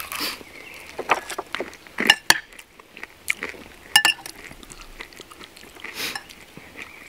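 Metal spoon clinking against glass serving bowls and dishes as food is scooped, in scattered sharp clinks; the strongest come about two seconds and four seconds in, some ringing briefly.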